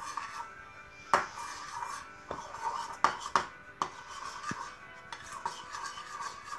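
A few sharp clinks and knocks of a ceramic mixing bowl and metal spoon being handled, the loudest about a second in and a cluster around three to four seconds in, over steady background music.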